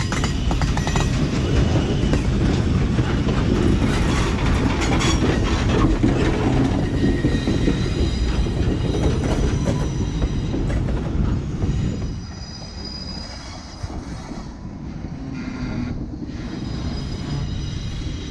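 Norfolk & Western 611, a streamlined J-class 4-8-4 steam locomotive, passing at close range: a loud, steady rumble of wheels and running gear with rapid clicks and thin high squeals. The sound falls off noticeably about twelve seconds in as the locomotive moves away.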